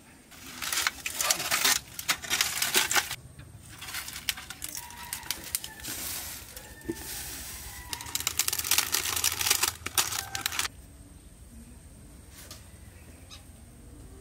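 Leaves crinkling and crackling as they are handled, in two long bursts: one about half a second in, the other about eight seconds in as hands fold a leaf parcel around the prawn paste. Quieter rustling lies between the bursts.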